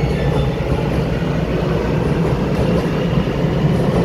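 Taiwan Railway EMU900 electric commuter train running past in an underground station: a steady rumble of wheels and motors that grows slightly louder toward the end.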